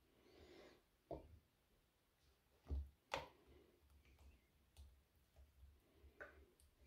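Near silence: faint room tone with a few soft clicks and knocks, two sharper ones close together about three seconds in, as a metal pan edge touches a plastic funnel while thick chilli sauce is poured into a squeeze bottle.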